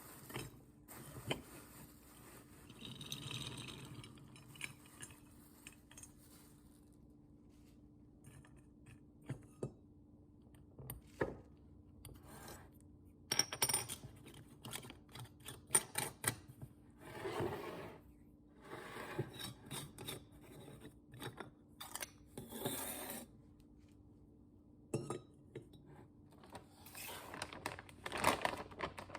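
Kitchen restocking handling sounds: scattered clinks, taps and knocks of containers being handled and set down, with a few short rustles, over a faint steady hum.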